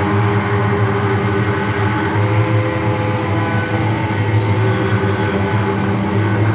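Experimental noise music: a loud, dense, steady droning wash with a constant low hum underneath and a few faint held tones higher up.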